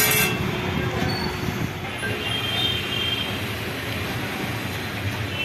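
Steady low rumbling background noise, with a sharp metallic clink at the very start.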